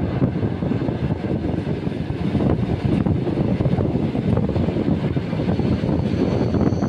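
ER2K electric multiple unit running along the line, heard from inside the carriage: a steady low rumble of the moving train.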